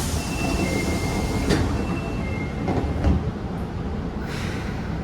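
High-pitched two-tone door chime of an Osaka Metro 22 series subway car, sounding twice, warning that the doors are closing, over the train's steady rumble. A couple of knocks follow, then a short hiss near the end.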